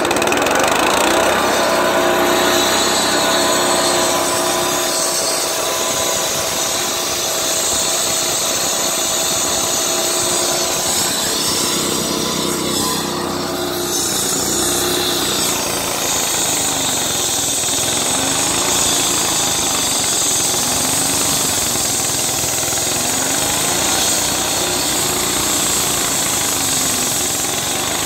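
Diesel walk-behind concrete saw running at full speed, its blade grinding through a concrete slab in a steady, loud, harsh whine. In the second half the engine note wavers up and down as the blade takes the load.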